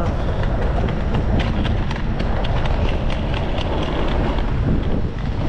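Footsteps on a paved sidewalk at a steady walking pace, heard as light repeated ticks over a steady low rumble of wind on the microphone.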